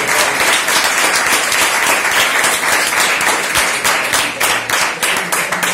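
An audience applauding, the dense clapping thinning out near the end into a few separate claps.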